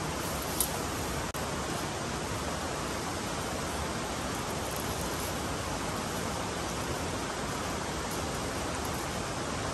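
Steady, even rushing noise with no distinct events, and a single short click about half a second in.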